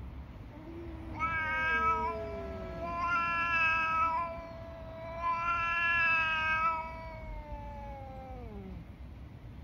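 Domestic cat giving one long, drawn-out threat yowl that swells three times and slides down in pitch near the end, with a lower wail gliding down beneath it at the start. It is the warning cry of a cat in a standoff with another cat.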